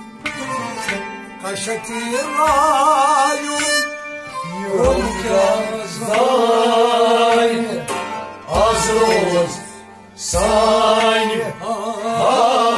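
Kashmiri folk music: a harmonium and an upright bowed string instrument accompany a man singing long phrases with a wavering vibrato, punctuated by deep drum strokes every two to three seconds.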